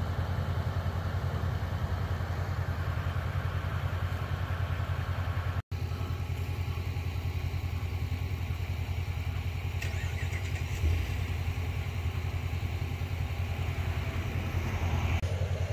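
A vehicle engine idling nearby: a steady low rumble that runs unchanged, with a brief dropout a little before six seconds in.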